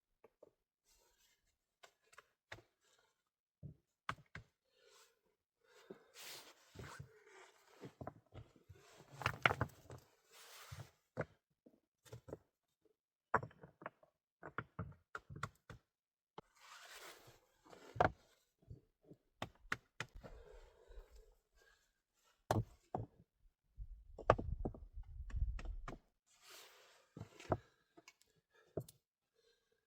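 Irregular knocks, clicks and brief rustles of objects being handled, with busier clusters of knocking and rustling about a third of the way in, around the middle, and near the end.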